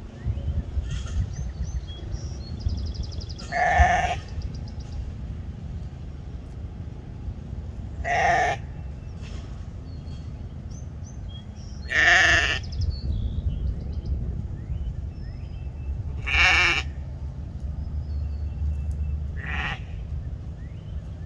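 Painted Desert sheep bleating five times, each bleat short and spaced about four seconds apart, over a steady low rumble.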